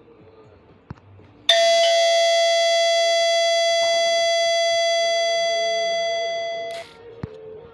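Nokia 7373 mobile phone ringtone: one long bell-like electronic chime that starts suddenly about a second and a half in, holds for about five seconds while slowly fading, then cuts off.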